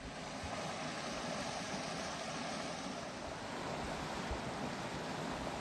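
Small creek cascade pouring over a sandstone ledge into a pool: a steady rush of falling water.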